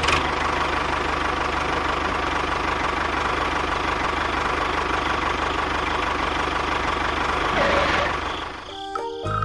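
A small engine or motor running steadily with an even low hum, then fading out near the end.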